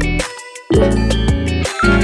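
Electronic music with heavy bass, pitched notes and a beat; the bass drops out briefly about half a second in.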